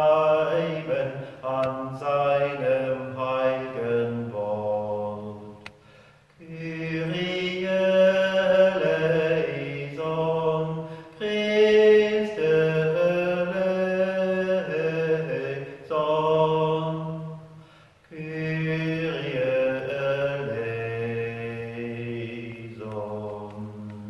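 A man's voice chanting liturgical text unaccompanied, in long held sung phrases with short pauses between them.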